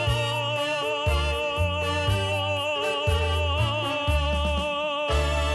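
Closing bars of a Russian song: accompaniment with a moving bass line under a long held note with vibrato, which gives way to a sustained chord about five seconds in.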